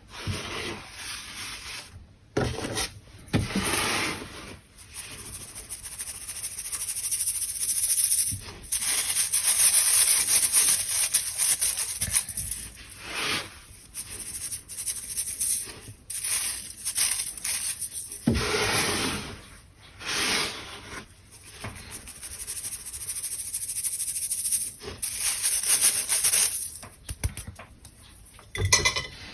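Crunchy dried baking soda being crushed and rubbed, making dry, scratchy crunching in uneven strokes, with longer stretches of steady hiss.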